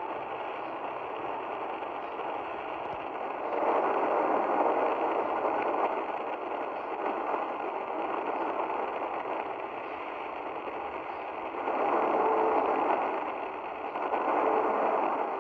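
Shortwave AM broadcast on 9670 kHz through a Tecsun PL-310ET receiver's speaker: mostly hiss-like noise with weak programme audio buried in it, the whole swelling louder twice.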